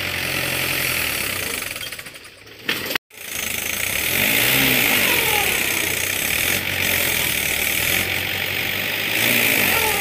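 Mahindra farm tractor's diesel engine working hard under load, pulling a trailer heaped with soil out of a pit while its rear wheel spins up dust. The sound drops out briefly about three seconds in, then comes back louder.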